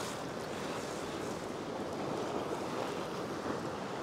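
Ocean surf washing against a rock ledge: a steady, even rush of water.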